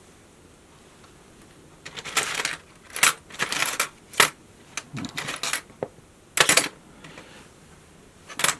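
Small metal parts and tools clinking and rattling as they are handled during a model revolver's disassembly: a string of short, sharp clatters starting about two seconds in.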